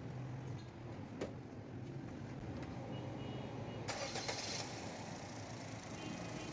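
Suzuki Alto engine running at a steady idle after a correctly sized 16 mm spark plug has been fitted for a cylinder-two misfire, which the mechanic says has cured the misfire. There is a click about a second in and a brief noisy burst about four seconds in.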